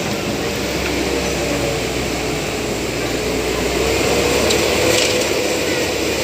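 Caterpillar 321B excavator's diesel engine running steadily under load, with a steady whine.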